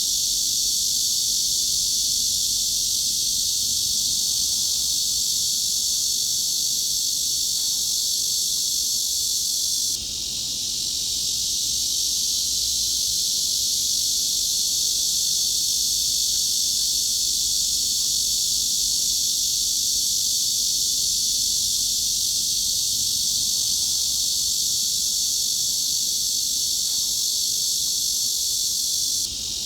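Cicadas buzzing in a dense, unbroken high-pitched drone, centred around 4 kHz and above. It dips briefly about ten seconds in and again near the end, then swells back.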